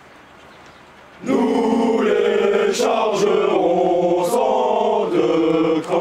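A marching formation of French chasseur soldiers singing a marching song together in unison, starting up again about a second in after a short pause between lines.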